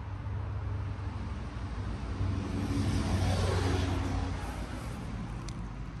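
Outdoor unit of a 1989 Carrier TECH2000 heat pump (38YG018) running, with a steady low hum from its original Tecumseh compressor and condenser fan. A broad rushing noise swells and fades about midway.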